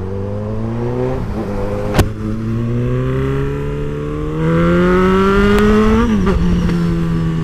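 Motorcycle engine accelerating, its pitch climbing steadily with a sharp click about two seconds in. The revs dip near six seconds and then hold steady.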